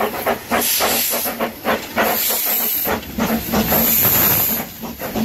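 Narrow-gauge steam locomotives 'Diana' and single Fairlie 'Taliesin' working slowly: quick, even exhaust chuffs, about five a second, mixed with loud hissing of steam blowing from the open cylinder drain cocks.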